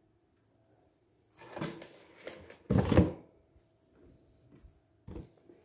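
Short handling knocks and scrapes of objects being moved on a countertop: a sliding scrape, a louder thud about three seconds in, and a last short knock near the end.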